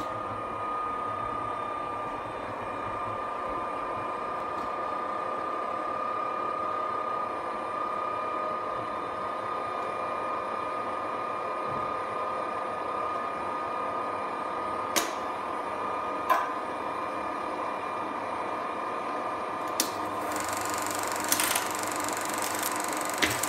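Fumeo hd 2000 16mm film projector humming steadily, with a few sharp clicks from its controls. Near the end its motor knob is turned and a hiss with a high, steady whine joins the hum.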